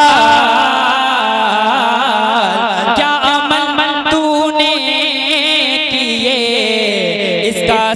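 A voice singing a naat in a long melismatic passage, its pitch wavering in quick, ornamented turns.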